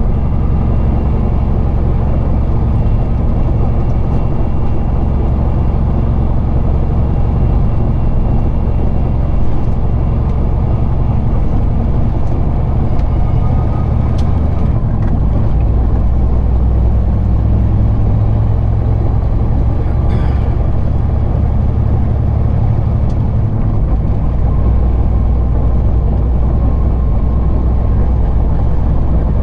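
Semi truck's diesel engine and road noise heard from inside the cab while driving, a steady low drone whose pitch shifts a few times.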